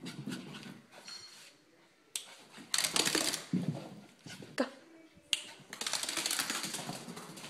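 A miniature pinscher's feet pattering and scrabbling as she runs across carpet and a hardwood floor, with irregular clicks and several sharp knocks.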